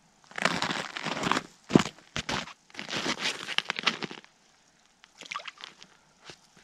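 Boots crunching on crusty snow in a few short runs of steps, with a couple of sharp knocks about two seconds in. The sounds are fainter near the end.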